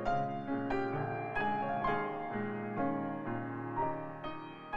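Background music: a slow piano-like melody, with a new note struck about twice a second.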